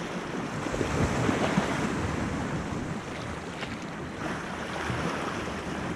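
Small sea waves washing and splashing against the rocks at the water's edge, with wind on the microphone; the wash swells a little about a second in.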